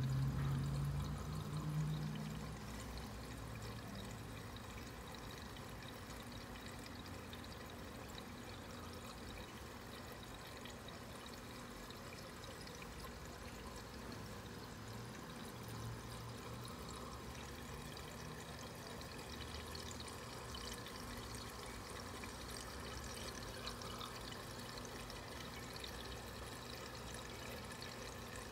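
Aquarium water running in a steady trickle. There is a low rumble in the first couple of seconds.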